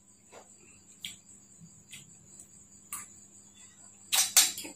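Chewing with faint mouth clicks about once a second, over a steady high-pitched whine; about four seconds in, a metal fork and spoon clatter several times against the rice plate.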